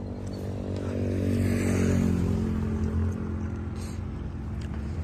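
Tractor diesel engine running steadily at idle. It grows a little louder between about one and two and a half seconds in, then settles.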